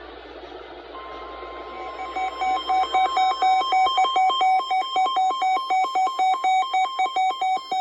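NOAA Weather Radio 1050 Hz warning alarm tone sounding over radio hiss, beginning about a second in. From about two seconds in, a loud, rapid electronic beeping pulses over it, several beeps a second.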